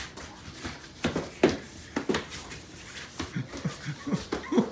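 Boxing-glove punches landing in a sparring bout: a few sharp smacks, the loudest about a second and a half in, then a flurry of short scuffling and vocal bursts near the end.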